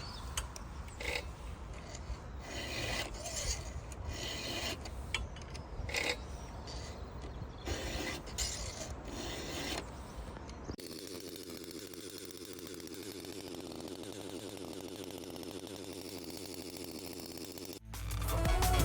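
Irregular scraping and rubbing sounds, as of handling and working on wood, for about the first eleven seconds, then a steadier low noise. Electronic music starts loudly about a second before the end.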